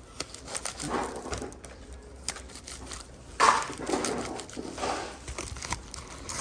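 Packaging being handled and crinkled: a run of small clicks and rustles, with louder crumpling about a second in and again from about three and a half to five seconds.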